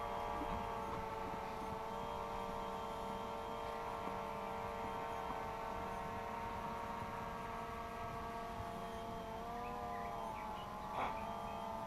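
DJI Phantom 2 Vision Plus quadcopter's motors and propellers humming steadily in flight, shifting pitch briefly near the end, with a short click about eleven seconds in.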